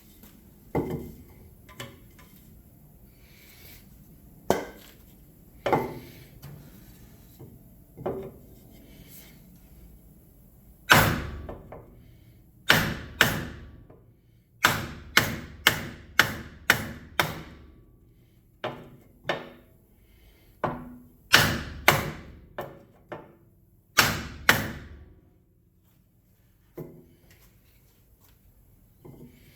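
Hammer blows struck through a wooden block onto a dented motorcycle wheel rim to knock the dent out: a series of sharp knocks, a few spaced out at first, then a quick run of about two a second through the middle, stopping a few seconds before the end.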